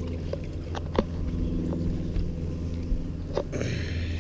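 Water sloshing as a crappie is handled in a plastic tub of lake water and lifted out onto wooden dock boards, with a knock about a second in and another near the end, followed by a splash and dripping. A steady low engine hum runs underneath throughout.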